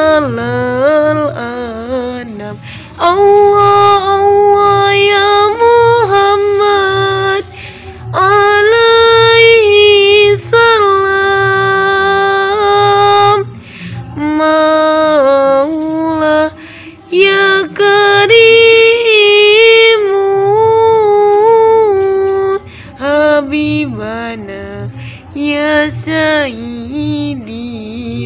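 A woman's solo voice singing a sholawat, an Islamic devotional song praising the Prophet, in long, ornamented held notes with short pauses between phrases. A low, steadily repeating pulse runs underneath.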